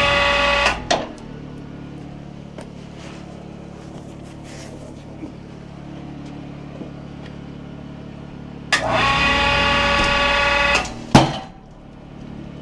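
Electric hoist winch whining under load in two runs, briefly at the start and for about two seconds near the end, over a steady low hum. A single loud bang comes just after the second run.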